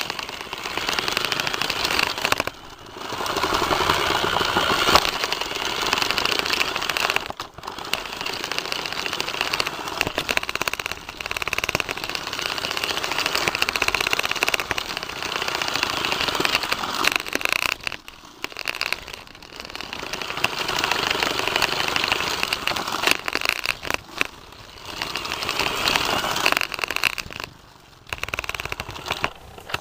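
Rokenbok toy monorail car running along its plastic track, its small motor and gears whirring with a fast, dense rattle, heard close up from on board. The noise dips briefly several times.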